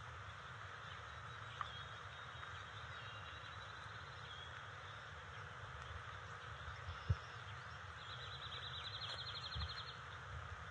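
Faint outdoor ambience on a nest-cam microphone: a steady hiss, with a bird's rapid high trill twice, briefly near four seconds in and longer about eight seconds in. A single low thump about seven seconds in is the loudest sound.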